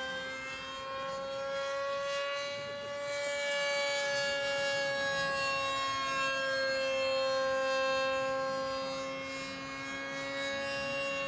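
Homemade F-15-style radio-controlled model plane in flight: its motor gives a steady high whine with many overtones, the pitch drifting slowly up and down.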